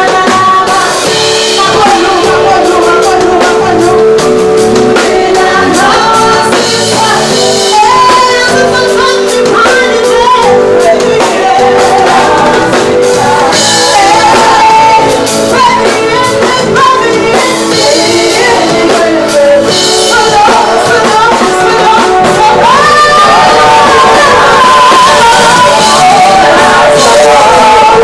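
Live music: a woman singing a melody with held notes into a microphone, over band accompaniment with drums, played loud through the PA.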